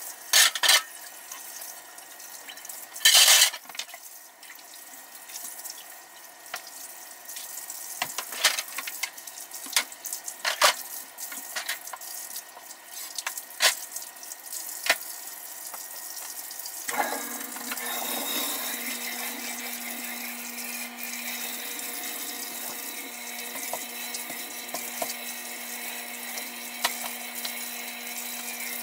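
Washing up at a kitchen sink: dishes and cutlery clink and clatter in sharp, scattered knocks, with one loud short burst about three seconds in. About two-thirds of the way through, the faucet is turned on and water runs steadily into the sink with a low steady hum, as dishes still clink now and then.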